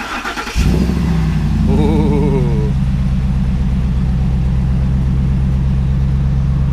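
Ford F-150 Raptor's 6.2-litre V8 cranked by its starter, catching about half a second in, then idling steadily and loudly through a newly fitted Borla Touring cat-back exhaust.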